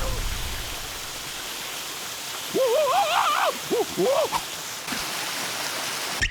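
Cartoon soundtrack: a steady rushing noise, with a cartoon larva character making a few wavering, warbling vocal sounds about halfway through.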